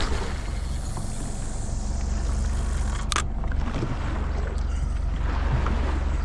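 Boat engine droning steadily at trolling speed under a wash of wind and water noise, with one short sharp click about three seconds in.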